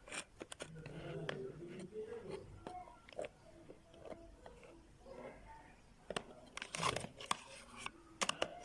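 Irregular clicks and light knocks, like small hard parts being handled, with faint talk in places.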